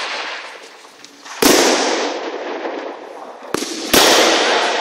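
Escrima sticks striking hard during sparring: two loud sharp cracks about two and a half seconds apart, each ringing on in the hall's echo, with a lighter click just before the second.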